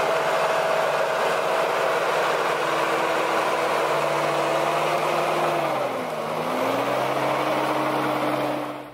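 Valtra 8150 tractor's six-cylinder diesel engine running steadily under load while hauling a loaded forestry log trailer. About six seconds in the revs sag and then climb back to a steady pitch.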